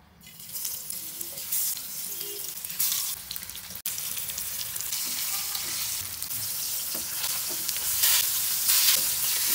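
Hilsa fish steaks sizzling as they fry in hot mustard oil in a pan. The sizzle swells up about half a second in and grows louder toward the end.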